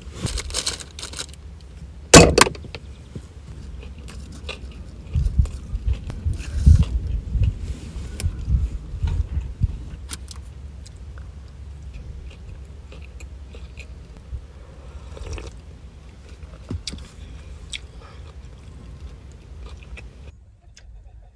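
Eating with chopsticks from takeout containers: small clicks and rustles of food packaging, with a sharp knock about two seconds in and a run of low thumps for a few seconds around the middle.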